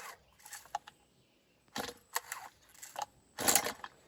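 A cold chainsaw's recoil starter being pulled repeatedly: a run of short rasping whirrs of the cord, the loudest pull near the end, with the engine not yet firing.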